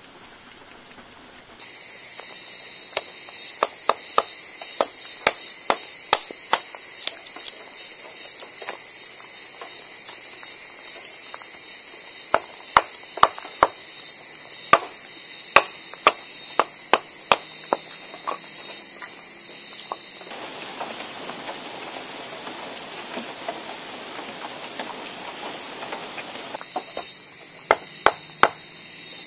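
A machete blade chopping and shaving a wooden stake: sharp, short knocks in irregular runs, with a pause in the middle. Behind them runs a steady high drone of insects.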